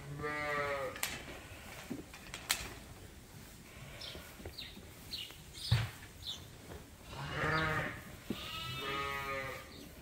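Suffolk sheep bleating three times: once at the start and twice in quick succession near the end. A single sharp knock sounds about halfway through.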